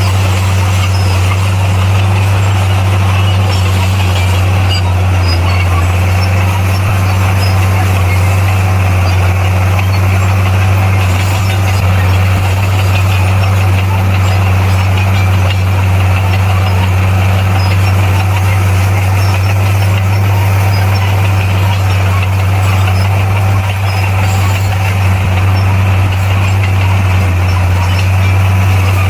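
Bulldozer's diesel engine running at a steady speed, a loud, even low drone that does not change.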